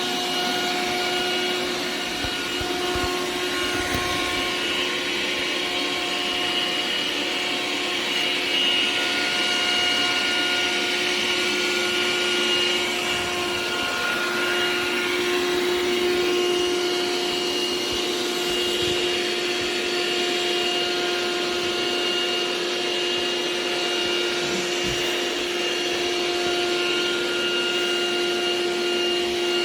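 Xiaomi Robot Vacuum X20 Pro's suction motor running steadily: an even rushing noise with a constant whine.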